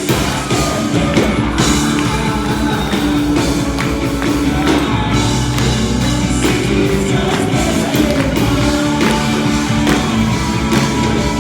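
Band music with singing and drums, loud and steady.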